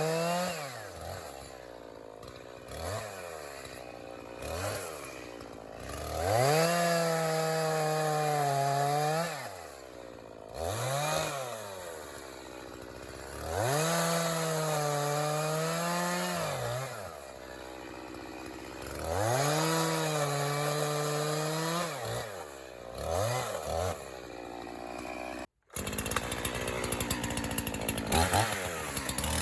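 A 50cc two-stroke chainsaw bucking ash logs, revving to full throttle for cuts of about three seconds each and dropping back to idle between them, with a few short blips of the throttle. Near the end the sound cuts out for an instant and a rougher, crackling passage follows.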